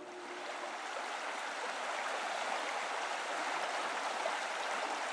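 Shallow rocky brook running over stones, a steady even sound of flowing water.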